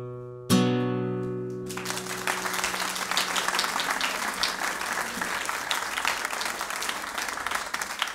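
A closing chord strummed on a handmade classical guitar rings out and fades. An audience then starts applauding about two seconds in.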